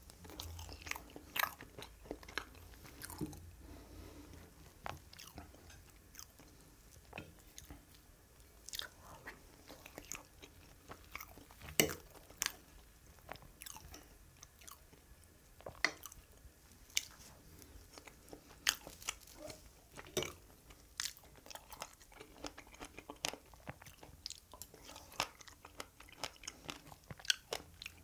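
Close-miked chewing and biting of strawberry cake: irregular wet mouth clicks and smacks, with the loudest one a little before the middle.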